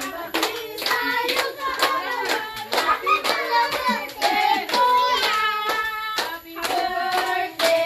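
A group of people singing a birthday song together while clapping along in a steady beat.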